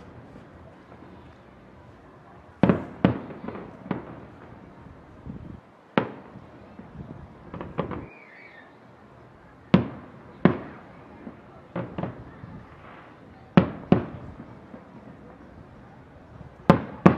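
Aerial firework shells bursting: about a dozen sharp bangs at irregular intervals, some in quick pairs, each trailing off in a rolling echo.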